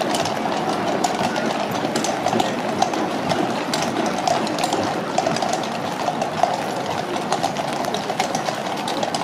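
Shod hooves of several carriage horses clip-clopping irregularly on a wet road, over the steady rumble of wooden-spoked carriage wheels rolling past.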